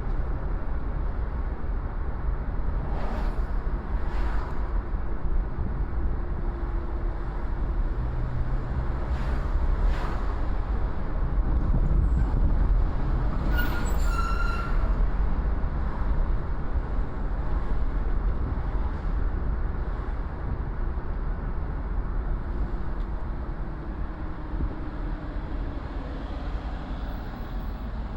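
Car driving through city streets: a steady low engine and road rumble with a few light knocks, and a brief high-pitched squeal about halfway through.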